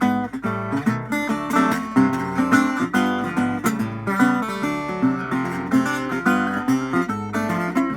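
A 1932 National Triolian, a metal-bodied single-cone resonator guitar, being played: a steady run of plucked notes over a moving bass line.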